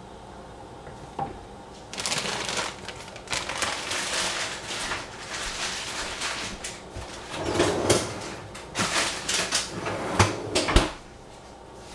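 Kitchen handling noises: a stretch of crackly rustling and scraping with scattered clicks, ending in several sharp knocks about ten seconds in.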